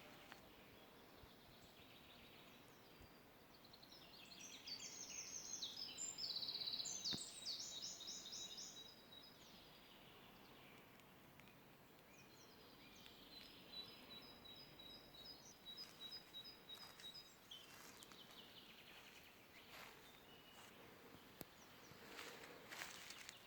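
Songbirds singing faintly: a fast trilling song of rapidly repeated high notes from about four to nine seconds in, then a thinner series of short high notes a little later, over a quiet outdoor background.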